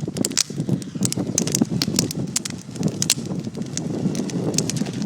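Wood fire crackling: many sharp, irregular pops over a steady low rushing noise.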